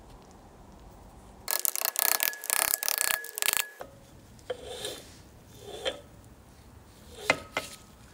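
A seized piston grating against its cylinder bore as it is worked loose, with a rasping scrape of about two seconds from about a second and a half in and a brief squeal within it. A few shorter scrapes and a sharp click follow.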